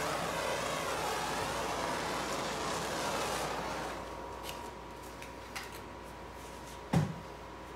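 Handheld torch flame hissing steadily over wet acrylic paint, stopping about four seconds in. A single dull thump comes near the end.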